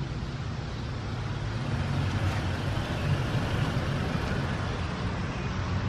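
Lifted Toyota Tacoma TRD Off Road pickup on 33-inch Goodyear Duratrac tyres driving slowly past on pavement, engine and tyre noise growing louder over the first couple of seconds as it approaches.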